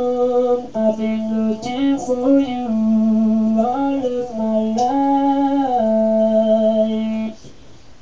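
Talk box singing: held instrument notes shaped into words by the player's mouth, stepping between steady pitches in a slow melody. It cuts off suddenly about seven seconds in.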